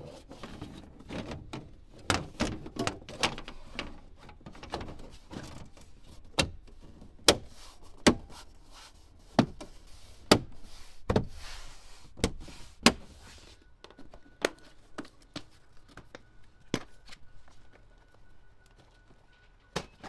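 Plastic dash-top trim panel of a 2007 Dodge Ram being pressed down by hand, its retaining clips snapping into place: an irregular run of sharp clicks and knocks, loudest around the middle and thinning out near the end.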